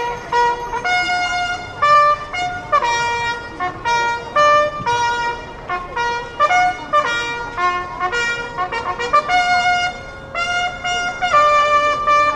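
Brass band playing a slow melody led by trumpet, in long held notes.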